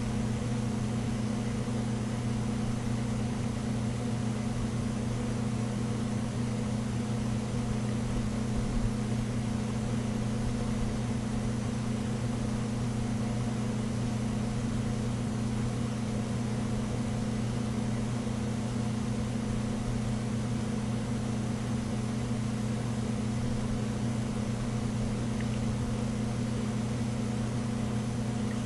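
Steady low electrical hum with an even hiss underneath, unchanging throughout.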